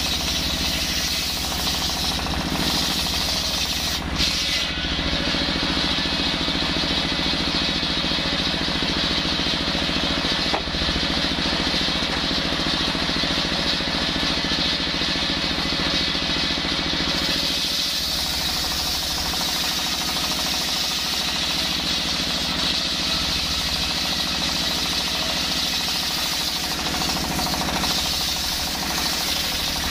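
A stationary diesel engine runs steadily with a fast knocking chug, driving a large circular saw blade that rips lengthwise through a hard coconut-wood log. The blade cutting the wood adds a high, hissing whine over the engine.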